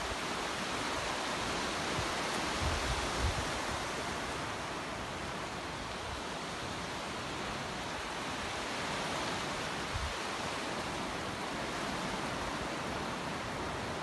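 Shallow surf breaking and washing in over flat sand: a steady, even hiss of waves. A few brief low thumps come about three seconds in and again near ten seconds.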